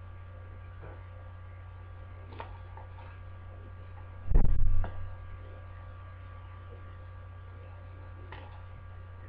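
Steady electrical mains hum on the recording, with a loud low thump about four seconds in and a few faint clicks.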